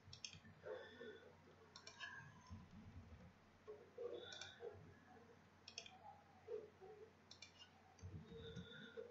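Faint computer mouse clicks and keyboard keystrokes, coming in small clusters every second or two, as numbers are entered into a software table.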